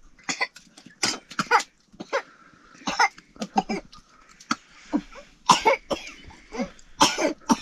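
A person coughing repeatedly, about a dozen short, irregular coughs, some with a bit of voice in them.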